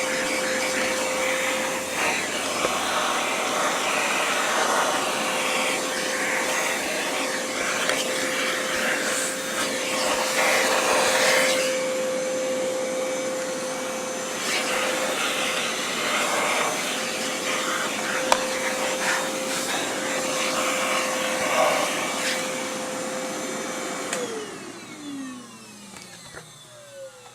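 Oreck XL hand vacuum running, its suction rushing and changing as the nozzle moves over the upright vacuum's hood while cleaning dust out of it. About 24 seconds in it is switched off and the motor winds down with a falling whine.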